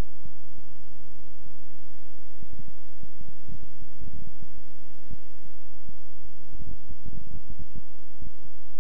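Steady, loud electrical mains hum, with a few short clicks scattered through it, some in quick clusters.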